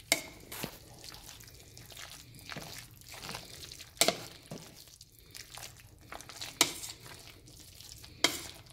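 Spoon stirring a soft, cooked potato-and-pea mixture in a steel pot: low squishing, broken by a handful of sharp clinks of the spoon against the pot's side.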